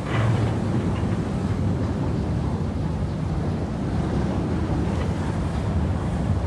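Steady, low rumbling wind noise buffeting the microphone.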